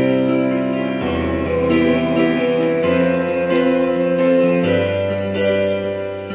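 Electronic keyboard playing a slow worship-song introduction: held chords over a bass note that changes about every two seconds.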